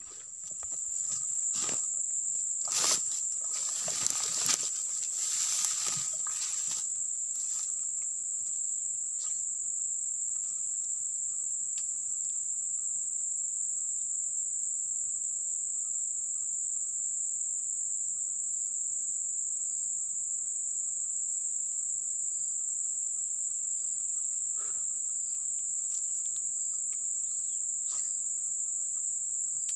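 A steady, high-pitched chorus of insects that holds through the whole stretch. A few brief rustles and knocks come in the first six seconds, with the odd click later.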